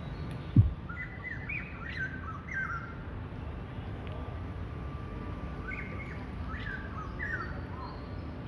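Small bird chirping in two short runs of quick sweeping notes, about a second in and again around six seconds in, over a steady low background rumble. A single low thump about half a second in is the loudest sound.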